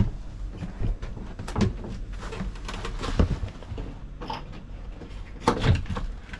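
A few knocks and thuds of a boat's compartment hatch being opened and handled to get at the generator below, spread over several seconds.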